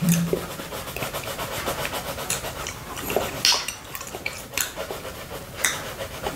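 Orange coloured pencil scratching steadily across colouring-book paper close to the microphone, with short licking sounds of a tongue on a honey-coated glass plate.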